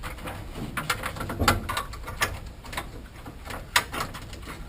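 Clicks, knocks and rattles of a stackable washer-dryer's control-panel cover being handled and fitted back into place, with a heavier thump about one and a half seconds in and a sharp click near the end.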